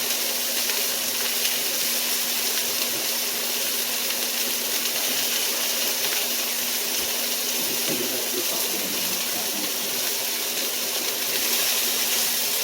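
Chicken tenderloins frying in olive oil in a hot skillet: a steady sizzling hiss.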